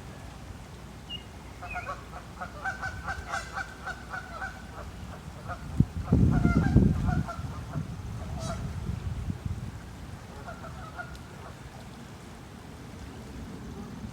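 Birds giving quick runs of short repeated calls in three bouts, the first and longest from about two seconds in. About six seconds in, a loud low rumble briefly covers them.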